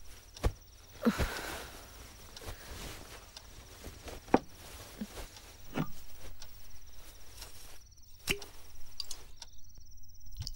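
A few scattered sharp knocks and clicks, about five in ten seconds, over a faint steady high-pitched tone.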